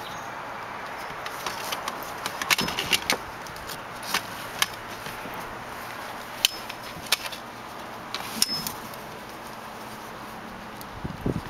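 Scattered metallic clicks and clinks of strap buckles and a snap hook as nylon webbing straps are fastened around an aluminium crossbar, over a steady background hiss.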